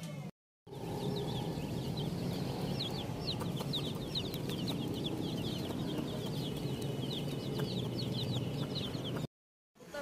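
Chicks peeping: many short, high, falling cheeps overlapping without a break, over a low steady hum. The sound drops out briefly just after the start and again near the end.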